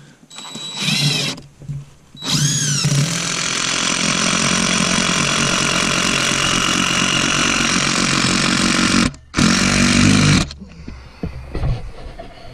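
Cordless DeWalt impact driver driving a long screw through a tyre into a wooden chopping block. A short burst comes first, then a long run of about seven seconds that opens with the motor's whine rising, and a final short burst about ten seconds in.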